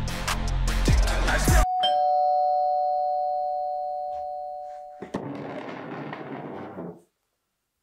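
Background music cuts off abruptly, and a doorbell chime rings once: a two-tone ring that slowly fades over about three seconds. Then comes a click and about two seconds of scraping, a chair pushed back from a table.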